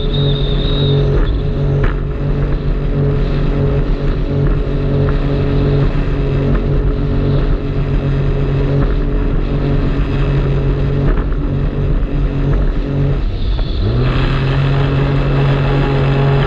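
Jet ski engine running at a steady pitch. Near the end it dips, then rises back up as the throttle is opened again.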